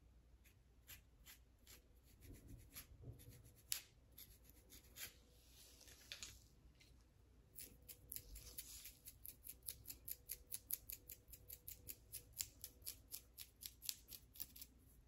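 Fingernails and a small comb scratching a flaky, dandruff-covered scalp through coarse hair, making crisp scratchy strokes. Sparse at first, then from about halfway a quick, even run of strokes, about four a second.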